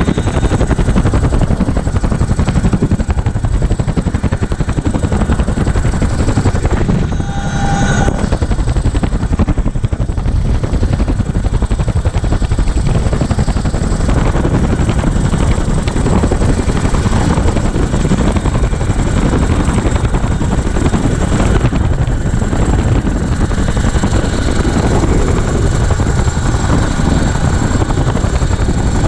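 CH-47F Chinook tandem-rotor helicopter in flight, heard from on board: the rotors and twin turbine engines make a loud, steady, dense noise with a thin high whine throughout. A brief pitched tone sounds about seven seconds in.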